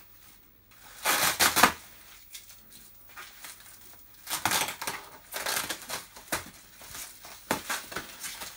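Bubble wrap crinkling and rustling as it is pulled and torn open, in irregular bursts, the loudest about a second in and another at about four and a half seconds.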